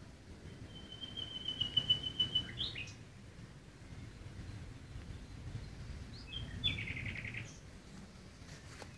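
A small songbird singing twice: a rapid, high run of notes lasting about two seconds, then a shorter phrase about six seconds in, over a low steady background rumble.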